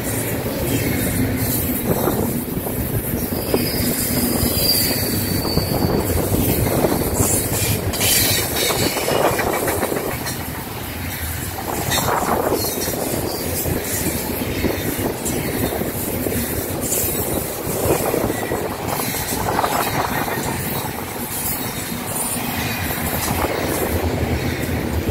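Double-stack intermodal train's well cars rolling past at track speed: a steady rumble of steel wheels on rail with scattered clicks, and a short thin high wheel squeal a few seconds in. A quiet, smooth-running train.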